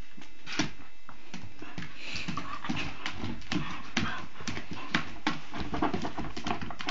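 Two dogs moving about on a tiled floor, their claws clicking and tapping in a fast, irregular patter, with a brief rustle about two seconds in.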